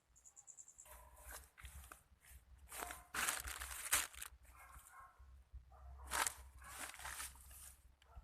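Footsteps crunching and rustling through dry vegetation, in two longer bursts, over a low rumble of wind on the microphone.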